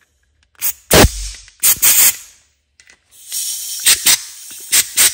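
Compressed-air blow gun blasting air through a Kohler Courage lawn tractor carburetor's jets and passages to clean them out: several sharp, short blasts of hissing air, then a longer hiss with more blasts in the second half.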